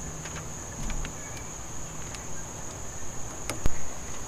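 Jeep CJ7 engine idling with a low, steady rumble, freshly leaned out on its Weber 32/36 carburetor, under a steady high insect drone. Two sharp clicks come near the end.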